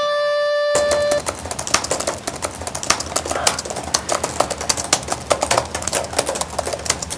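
A held harmonica note ends within the first second, then several people type on laptop keyboards: a steady, rapid clatter of key clicks.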